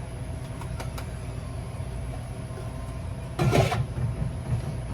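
Steady low background rumble, with a few light clicks in the first second and one short, louder clatter about three and a half seconds in: handling noise as ingredients and containers are set down.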